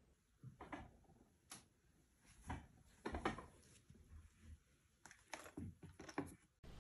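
Faint, scattered light knocks and clicks in a quiet room, a dozen or so spread irregularly over several seconds.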